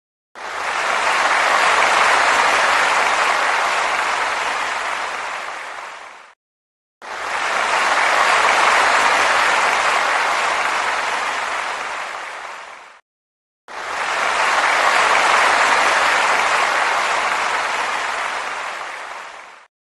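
Audience applause in three bursts of about six seconds each, every one starting suddenly and slowly fading out, with a brief silence between them.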